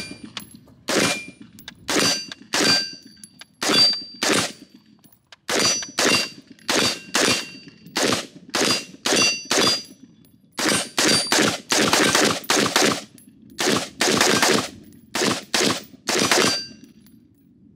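AR-15 pistol fired semi-automatically, about thirty single shots through a magazine, the pace quickening in the second half. Many shots are followed by the brief high ring of a hit steel target.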